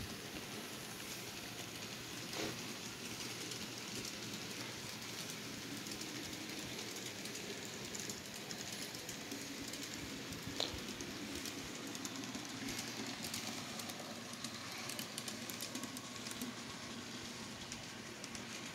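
N-scale model freight train behind a Kato F7 locomotive set, running on T-Trak module track: a steady faint rolling whir with light scattered clicking, and two sharper clicks about two and a half and ten and a half seconds in.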